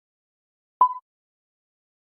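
A single short electronic beep: one steady tone about a fifth of a second long, with a click at its start, about a second in.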